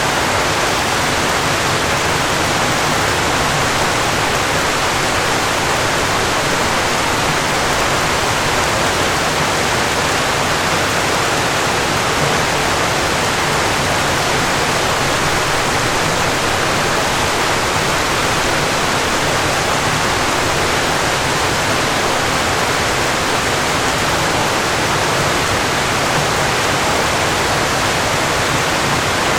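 Falling water, a steady, unbroken rush like a waterfall, even in level throughout.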